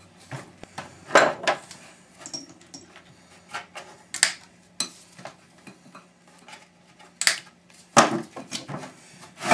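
Metal parts of a dismantled electric motor clinking and clattering as they are handled, a string of sharp knocks at irregular spacing, the loudest about a second in and again near the end.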